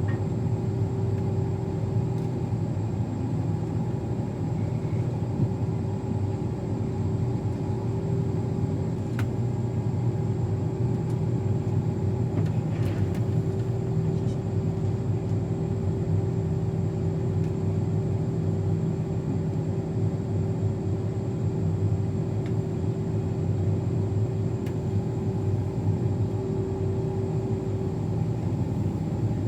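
Combine harvester running steadily: a low engine drone with a steady whine held above it throughout.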